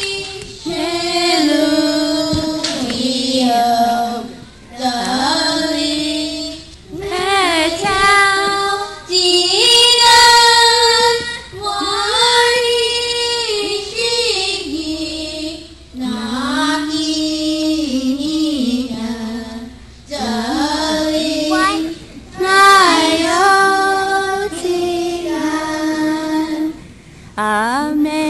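A small group of children singing a Lenape hymn together, in phrases of a few seconds with short breaks between them.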